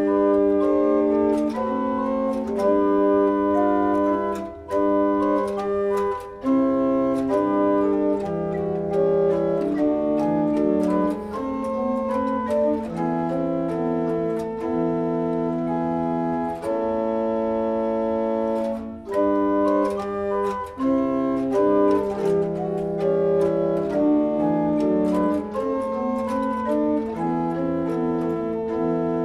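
Pipe organ playing an early sixteenth-century Italian frottola intabulation: several voices of held, steady notes moving together in chords, with a few brief breaks between phrases.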